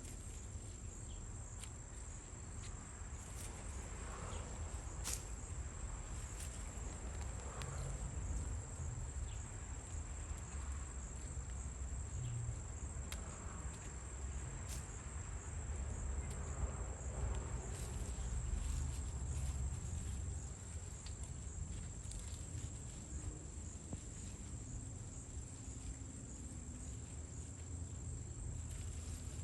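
Crickets trilling with a steady, high-pitched hum, over a low rumble and a few soft scuffs and clicks.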